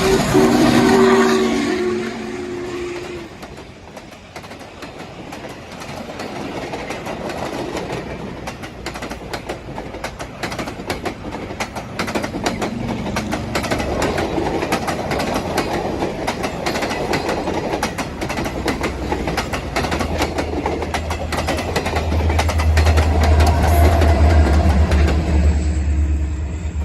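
A train horn sounds for about the first three seconds. Then a train's wheels click rapidly over jointed rail, a steady clickety-clack, and a deep low rumble swells near the end.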